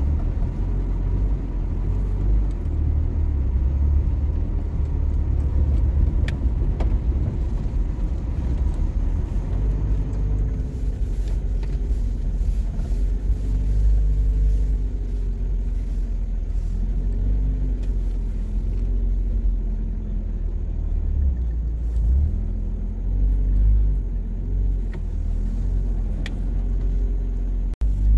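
Street traffic: car engines running and passing over a steady low rumble. From about ten seconds in, an engine's note rises and falls repeatedly, and the sound cuts out for an instant near the end.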